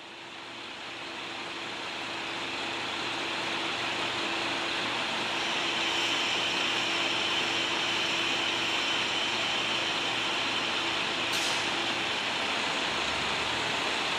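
KiHa 185 series diesel railcar running at a standstill: a steady engine drone with a held tone, fading in over the first few seconds. A short hiss of air comes about eleven seconds in, and a deeper low rumble builds near the end.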